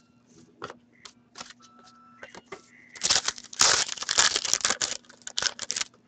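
Foil hockey card pack being torn open and its wrapper crinkled: a dense crackling rustle from about three seconds in until near the end, the loudest sound here. Before it, light taps and clicks of cards being handled.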